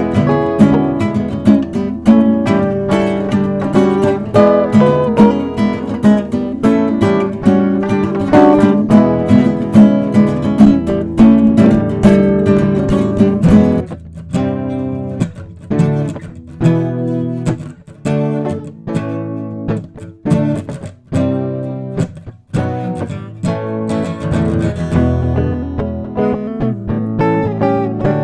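Instrumental break played on strummed acoustic guitar, no singing. About halfway through, the steady strumming thins out into separate, clipped chords with short gaps, then fills out again near the end.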